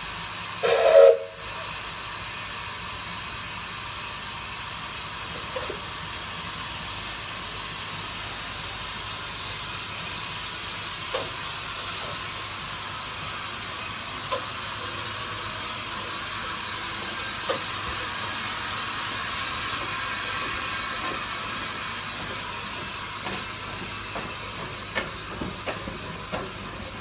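Narrow-gauge steam locomotive giving one short whistle blast about a second in, then steam hissing steadily, with a few faint clanks.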